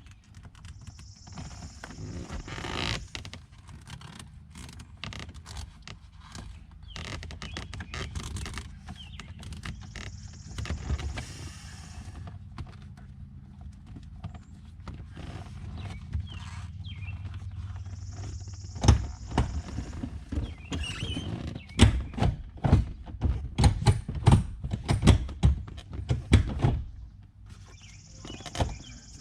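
Hands working a leather shifter boot and its plastic trim over a Corvette's shift lever: rustling and scraping, with a run of sharp knocks and taps in the second half.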